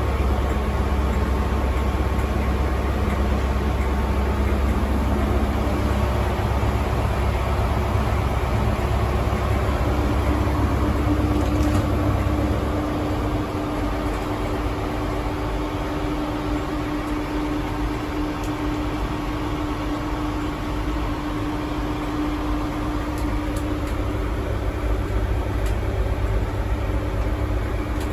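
Diesel engine of a Class 43 HST power car idling, heard from inside the train as a steady low rumble that eases slightly about halfway through. A steady hum runs alongside it for a while.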